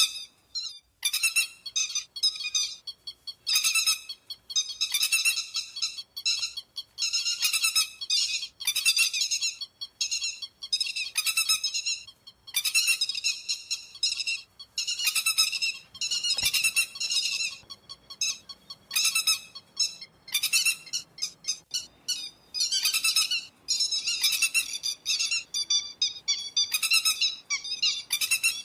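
Recorded lapwing calls (te te vàng) played as a bird-trapping lure: repeated bursts of sharp, high, rapid notes, roughly one burst a second, with no background noise.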